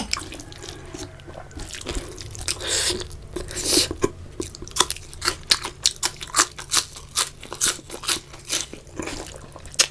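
A person eating close to the microphone: soft wet squishing as rice and curry are mixed by hand, then a quick run of crisp crunches as crunchy food is bitten and chewed.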